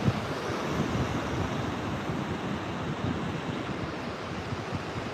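Pacific Ocean surf washing steadily onto the beach, with wind buffeting the microphone in uneven low gusts.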